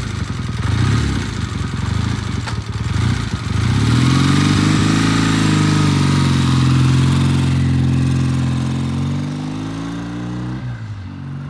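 Vintage British motorcycle engine ticking over unevenly, then rising in pitch and getting louder as it pulls away about four seconds in. It holds a steady note and then fades as it rides off, the pitch dropping and picking up again near the end. It sounds great on this test ride.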